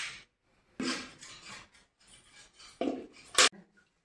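Steel mug knocking and scraping against a metal bucket as melted paraffin wax is scooped out, with one sharp metallic clink near the end.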